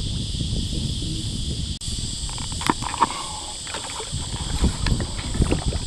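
Wind buffeting the microphone and water lapping against a kayak hull, with a few small knocks and splashes from handling on board.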